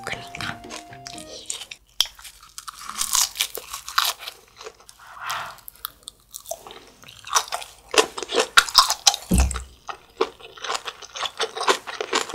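Close-up crunching and chewing of fresh napa cabbage kimchi, a dense run of crisp crunches that is thickest in the second half. A background tune plays in the first second or so, and there is a single low thump about nine seconds in.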